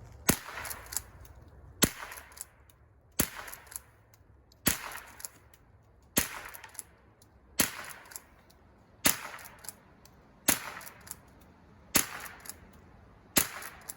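Henry Classic lever-action .22 LR rifle firing ten sharp shots at a steady pace, about one every second and a half.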